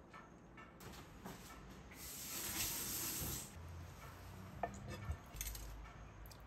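Kitchen work sounds: a rush of hissing noise lasting about a second and a half, then a few light clicks and knocks.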